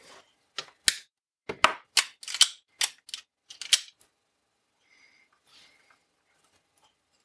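Diagonal wire cutters snipping a red-and-black two-core cable to cut a short jumper length, a run of about ten sharp snips and clicks that stops about four seconds in.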